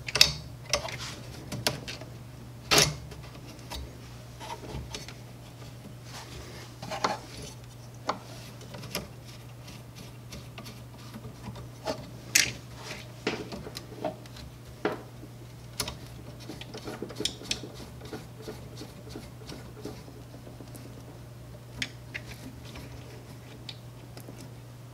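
Hands working on a 3D printer's print head: scattered clicks, taps and rubbing as small metal and plastic parts and tools are handled and fitted together, over a steady low hum.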